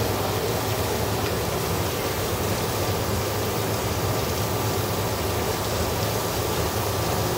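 Automatic khanom jeen (Thai rice noodle) making machine running: a steady motor hum under a constant rushing noise, unchanging throughout.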